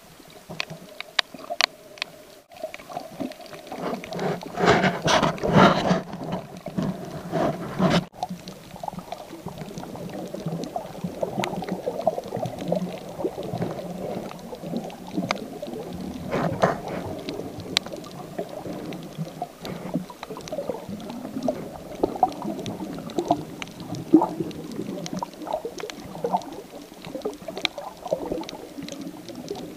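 Underwater sound picked up by a handheld action camera: water sloshing and bubbling around the camera, with many scattered sharp clicks, swelling louder about four to six seconds in.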